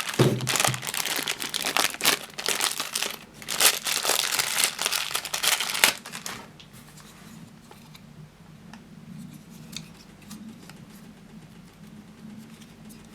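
Crinkling and rustling, like something being crumpled or handled, dense and loud for about six seconds. Then it falls quiet, leaving a faint low hum and a few small clicks.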